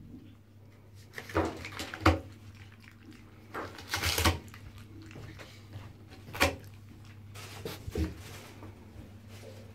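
Red fox knocking and scraping a bar of soap and its paper wrapper against a bathtub: a handful of short sharp knocks a second or two apart, with a longer scrape about four seconds in, over a low steady hum.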